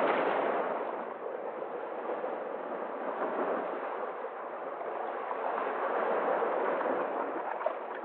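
Sea waves breaking and splashing over rocks at the shoreline: a rushing wash of surf that is loudest as a wave crashes at the start, eases off, then swells again with the next wave.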